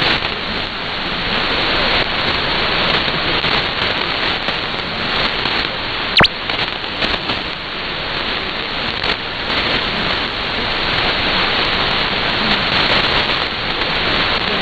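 Shortwave receiver hiss and static on 6160 kHz in synchronous AM, with the weak broadcast station barely above the noise. A sharp click about six seconds in.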